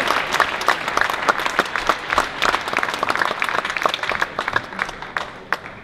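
Spectators in a sports hall applauding, the clapping thinning out and fading toward the end.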